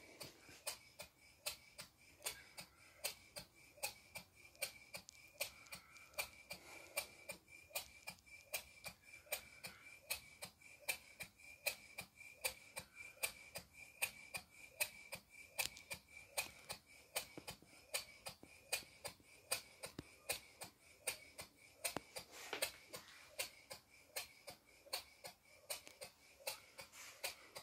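Model beam engine running on compressed air, giving a steady, even beat of sharp ticks, a few a second, with a faint steady high whistle underneath.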